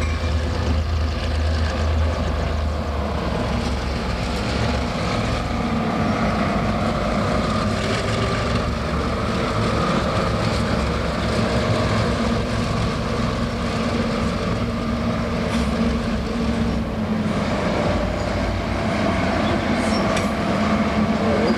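Diesel-hauled train running past: steady engine drone over a rolling rumble, with the engine note changing about seventeen seconds in.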